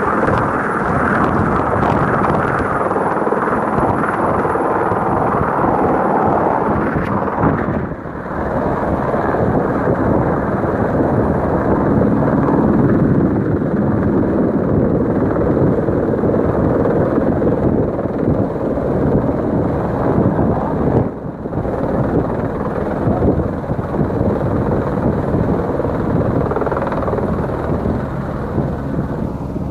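Helicopter hovering close by, its rotor and engine noise loud and steady, dipping briefly twice.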